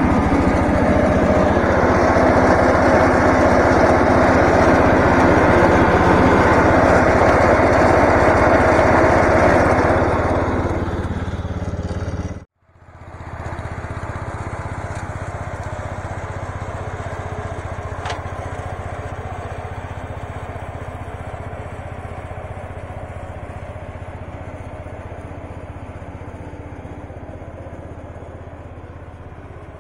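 Case 444 garden tractor's Kohler engine running up close with the mower deck, loud and steady. It breaks off abruptly about twelve seconds in. Then the same tractor runs at a distance while mowing, growing slowly fainter.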